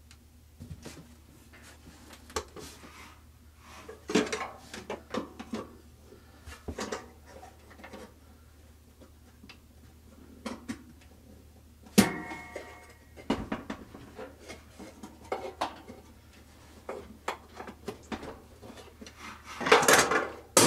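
Metal clinks, knocks and scrapes from hooking a steel coil tub suspension spring onto a Maytag Performa washer's frame with a spring tool. A sharp metallic clank about twelve seconds in rings briefly, and a louder clatter comes near the end.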